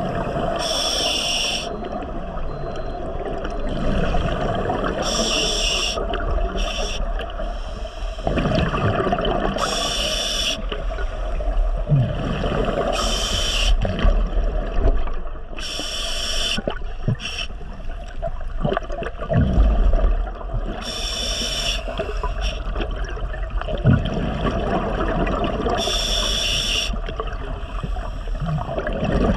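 Scuba diver breathing through a regulator underwater: a short hiss comes roughly every four to five seconds, with gurgling bubbles in between.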